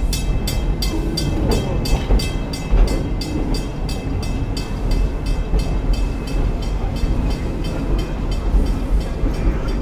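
Steam train running, heard from on board: a steady low rumble of the cars under a regular chuffing beat from the locomotive, about three or four chuffs a second, which fades away near the end.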